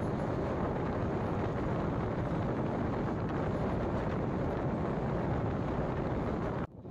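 Passenger express train running, a steady rumble and rush with wind buffeting the microphone. The sound breaks off abruptly near the end.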